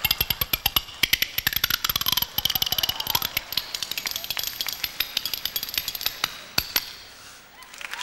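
A pair of spoons played as a percussion instrument in a fast, continuous roll of clicks, struck against the mouth, with a tone that slides down and back up about two seconds in. The playing stops about seven seconds in.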